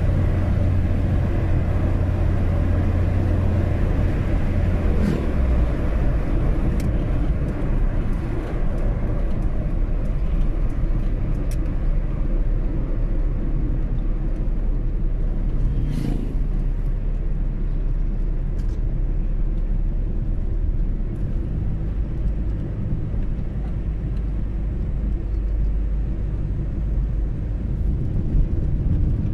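Car driving along at steady speed, heard from inside the cabin: a continuous low engine and road rumble, with a few faint ticks.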